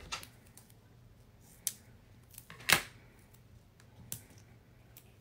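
Small pieces of foam tape and paper being handled and pressed onto a paper die-cut on a craft mat: a few sharp clicks and rustles, the loudest about two and a half seconds in.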